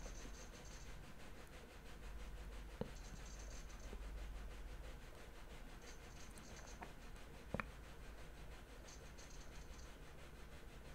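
Faint room tone: a low steady hiss and hum, with two faint clicks about three and seven and a half seconds in.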